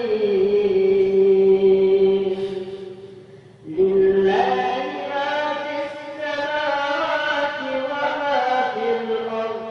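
Melodic Quran recitation (tilawat) by a single voice, in two long drawn-out phrases with a short breath pause about three and a half seconds in.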